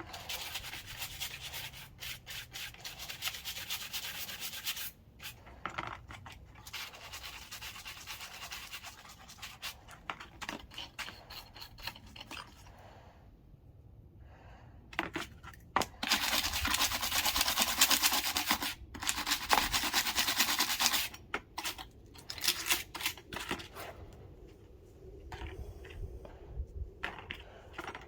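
Brake parts from a 2016 Honda Odyssey's front brakes being scrubbed clean by hand: repeated scratchy rubbing and scraping strokes, louder and denser for several seconds past the middle.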